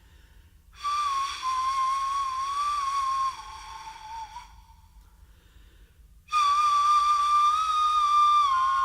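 A breathy flute-like wind instrument in the background music holds two long, slightly wavering notes near 1 kHz, with a pause between them.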